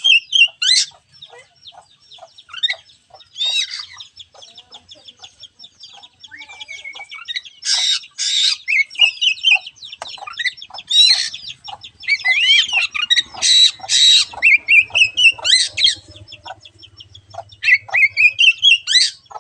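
Oriental magpie-robin (kacer) singing a long, varied song of quick chirps and rising and falling whistles, broken by several loud harsh rasping notes: a kacer lure recording meant to stimulate a reluctant bird to sing.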